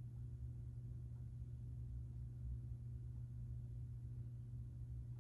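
Quiet room tone: a steady low hum with faint hiss and no distinct events.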